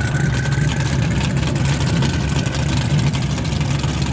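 Car engine running loudly and steadily at low revs, its exhaust note made of closely spaced even pulses.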